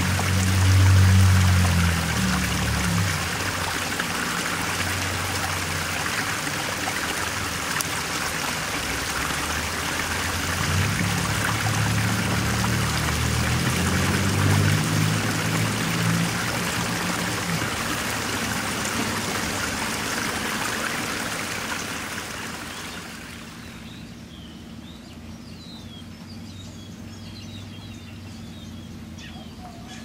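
Steady running water, trickling like a small stream, with low sustained notes underneath. About 23 seconds in the water fades out, leaving birds chirping over the low notes.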